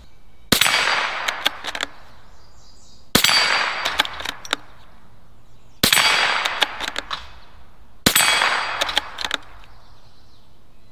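Four shots from a Ruger American bolt-action .22 LR rifle firing high-velocity rounds, about two to three seconds apart. Each shot is followed at once by a few ringing clangs of the steel paddles on a dueling-tree target.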